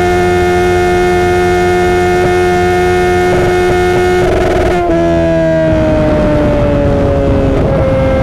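2015 Kawasaki Z1000's inline-four, fitted with Akrapovic headers and Vance & Hines Streetbrawler exhaust, running at high, steady revs at highway top speed. A little under five seconds in, the revs drop suddenly and then keep falling slowly.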